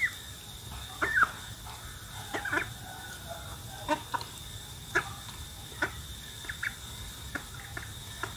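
Domestic duckling peeping: short high calls that rise and fall, about one a second, over a faint steady high-pitched whine.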